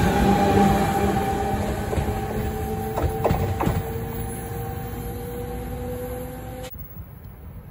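NJ Transit electric train running past and away down the track: a steady rumble with a whining tone, and wheels clacking a few times over the rail joints about three seconds in, fading as it goes. The sound cuts off abruptly near the end.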